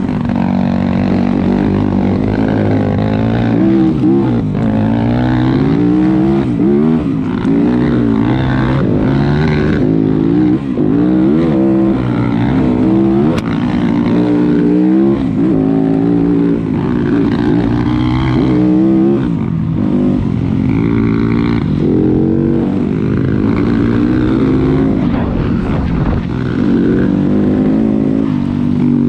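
Dirt bike engine ridden along a trail, its pitch climbing and dropping over and over as the throttle opens and closes and the gears change.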